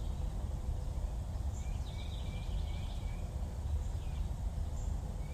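Steady low background rumble with a short run of faint, high chirps about two to three seconds in.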